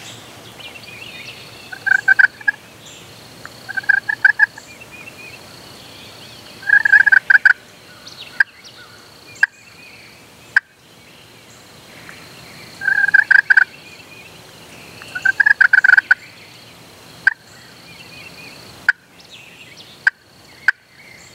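Wild turkey gobbler gobbling, five rattling gobbles spread over the first sixteen seconds. A few single sharp clicks follow later.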